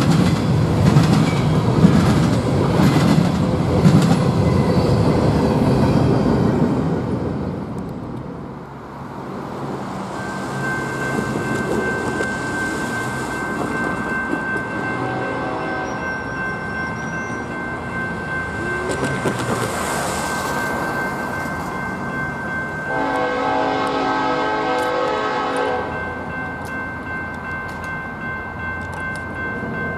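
Freight train's covered hopper cars rolling past, their wheels clacking over the rail joints in a steady rhythm, fading about seven seconds in. Then a grade-crossing warning bell rings steadily, and an approaching locomotive's horn gives a brief faint note and, near the end, a blast of about three seconds.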